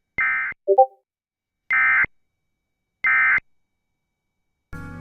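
Emergency Alert System end-of-message code: three short, identical, buzzy digital data bursts about a second and a half apart, which mark the end of the alert. A brief low blip comes between the first and second burst, and music starts just before the end.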